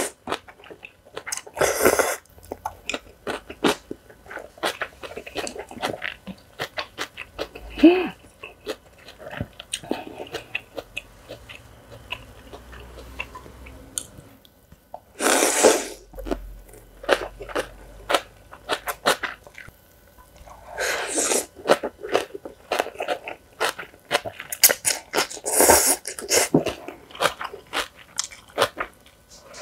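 Close-miked eating of young radish (yeolmu) kimchi noodles: several long, loud slurps of the noodles, with crunchy chewing of the crisp radish kimchi in between.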